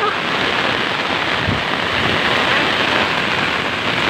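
Heavy rain falling steadily on a wet concrete seawall, an unbroken hiss.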